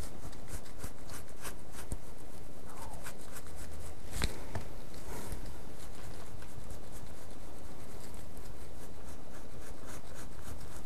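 Paintbrush stroking and dabbing wet filler mix onto the stiffening cloth of a sculpted hat brim: a run of light scratchy strokes in the first few seconds, a single sharp tap about four seconds in, then fainter strokes over a steady background hum and hiss.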